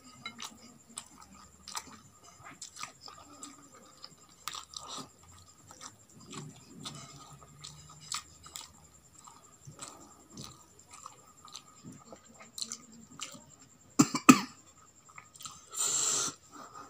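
Close-up chewing and mouth sounds of someone eating roasted chicken and rice by hand: soft wet smacks and small clicks throughout. Near the end, a sharp loud burst and then a longer noisy one, like a cough.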